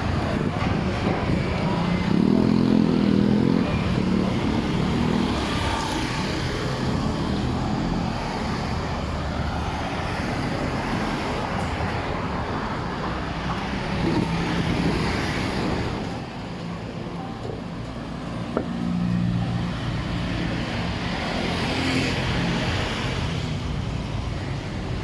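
Street traffic: cars and motorbikes passing by in a steady stream, their engines rising and fading against a constant road hum.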